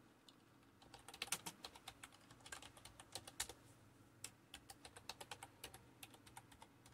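Faint typing on a computer keyboard: a quick run of key presses, a brief pause a little past halfway, then more keystrokes, as a terminal command and then a password are typed.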